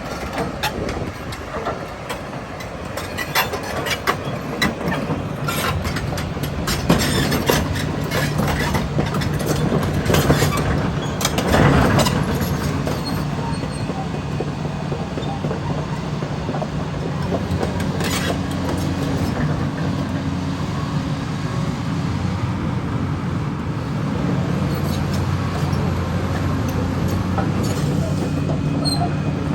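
Kobelco 380 excavator working: its diesel engine runs steadily while sharp metallic clanks and rattles come thick through the first half, then fewer, leaving mostly the steady engine hum, which gets a little louder near the end.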